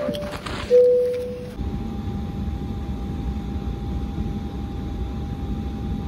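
A two-tone cabin chime, high then lower, each note dying away, then a steady low rumble with a thin steady whine of Embraer E195 cabin noise during pushback and engine start.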